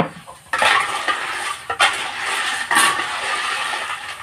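Food frying in a metal pot, stirred with a long spatula. A sizzling rush starts abruptly about half a second in, with a few sharp scrapes and knocks of the spatula against the pot.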